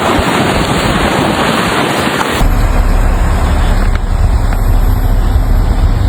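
A steady rough rushing noise. About two seconds in it changes abruptly to the steady low rumble of a vehicle running, with road noise.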